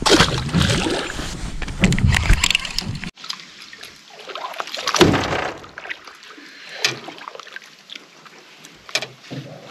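Water splashing and sloshing at the side of a boat as a small peacock bass is landed. The splashing is heaviest for the first three seconds, followed by a few separate splashes and light knocks.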